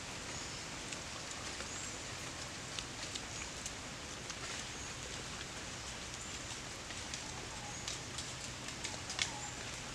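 Steady outdoor hiss with scattered faint ticks and light crackles, a few sharper clicks near the end.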